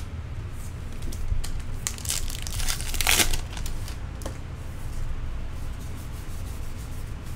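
Trading cards being shuffled and a pack wrapper crinkling, with small clicks of card on card and a longer, denser rustle about two to three seconds in. A low steady hum lies underneath.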